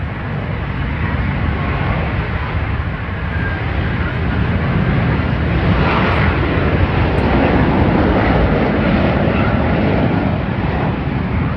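Military aircraft flying past with a loud engine noise that builds about a third of the way in, peaks in the middle and then begins to fade.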